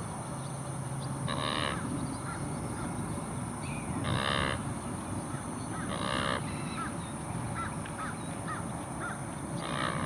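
A bird gives four short, harsh calls a few seconds apart, with faint short chirps from a smaller bird in between.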